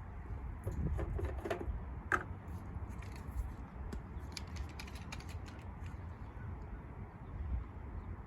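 Light clicks and rattles from handling the fuel can and snowblower fuel tank while getting ready to pour fuel, thickest in the first half with a sharper click about two seconds in, over a low steady rumble.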